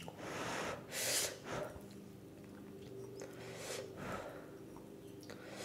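Thick udon noodles slurped from a bowl. There are two long slurps in the first second and a half, then a few shorter slurps around the middle.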